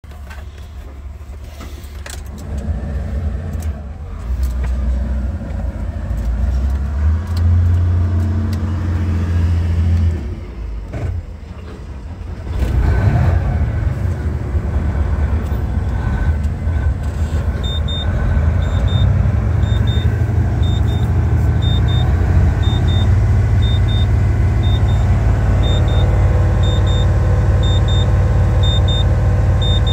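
The Isuzu 7.8-litre inline-six diesel of a GMC T7500 truck starts up and settles into a steady idle, heard from inside the cab. In the second half, a short dashboard warning beep repeats at an even pace over the engine.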